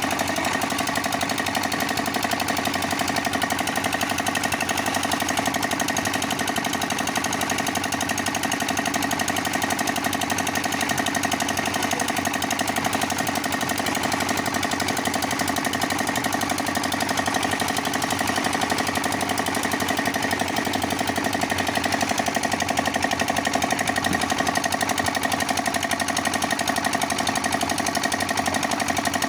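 Concrete mixer machine running steadily: a continuous mechanical drone with a fast, even pulse and no change in level.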